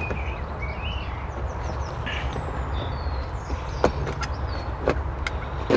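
Small birds chirping over a steady low outdoor rumble, with a few sharp clicks in the second half.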